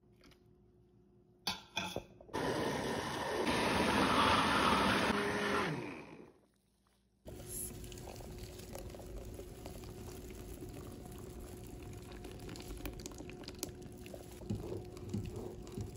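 A few clicks, then an electric blender runs for about four seconds, puréeing mulberries macerated in sugar with no water added, and winds down. After a short pause, thick berry purée pours and drips into a mesh sieve, quieter, over a faint steady hum.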